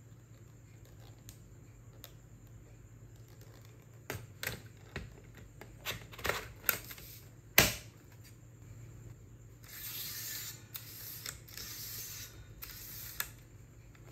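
Yellow Brother toner cartridge being pushed into its DR-240CL drum unit. There is a run of hard plastic clicks and knocks from about four seconds in, the loudest a single sharp snap about seven and a half seconds in, as the cartridge seats. After that come several short stretches of plastic scraping and rubbing.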